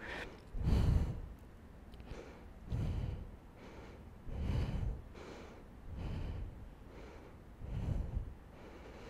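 A woman breathing audibly and evenly while holding a tight stretch, with soft breaths about every one and a half to two seconds.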